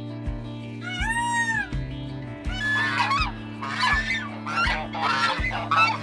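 A peacock gives one loud, arched wailing call about a second in. From about two and a half seconds a series of harsh goose honks follows, over steady background music.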